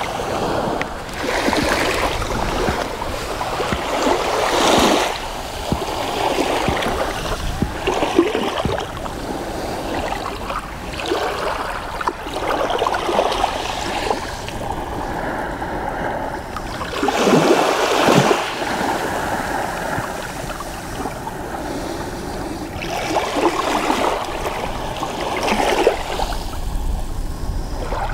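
Small sea waves lapping and washing over a shallow, shell-strewn sandy shore, swelling in irregular surges every few seconds. The largest surge comes about two-thirds of the way through.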